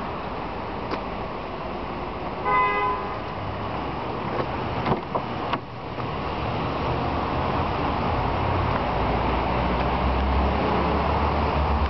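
Steady street traffic noise with a short car-horn toot about two and a half seconds in and a few sharp clicks around five seconds. A deeper low rumble builds from about eight seconds on.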